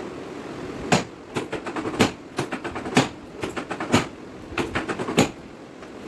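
Chiropractic drop-technique adjustments: a drop-table section snaps down with a sharp clack five times, about once a second, with lighter clicks between the main strikes.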